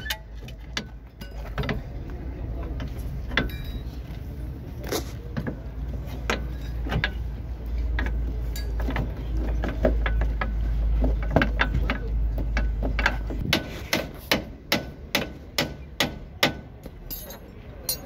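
Metal tools knocking and clinking against the steering knuckle and suspension parts of a car's front wheel assembly during suspension repair work. A low rumble runs under the first two-thirds, and near the end comes a run of evenly spaced sharp clicks, about two a second.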